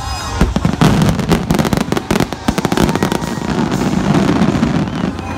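Fireworks going off, many sharp bangs in quick succession.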